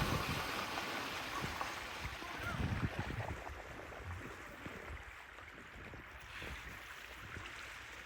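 Floodwater sloshing and lapping around a car stalled in a deep ford, with a few low thuds, growing fainter. The car's engine has stopped after hydrolocking.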